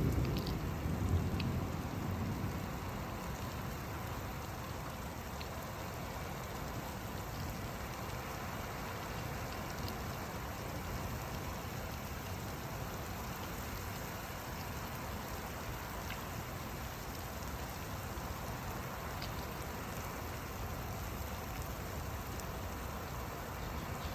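Steady rain falling during a thunderstorm, with the low rumble of a thunder clap dying away over the first two or three seconds.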